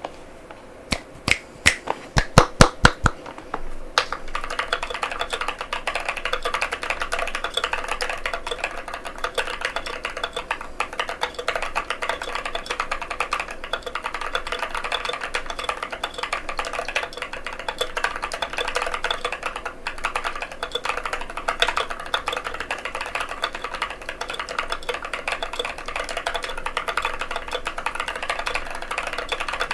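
Mechanical keyboard with Durock White Lotus tactile switches in a NovelKeys NK87 aluminum case. A run of loud single key clicks in the first three seconds is followed, from about four seconds in, by fast, steady typing.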